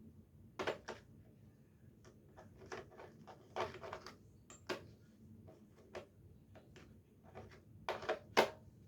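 Small hand tools from a new tool set being handled: scattered clicks and knocks at uneven intervals, the loudest two close together near the end.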